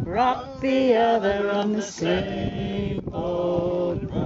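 Music: male singing of a song, with long held notes that slide into pitch.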